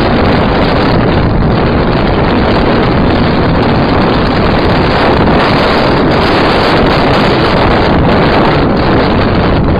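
Sprint car's V8 engine running hard at racing speed, a loud, steady engine noise from an in-car camera, with wind on the microphone.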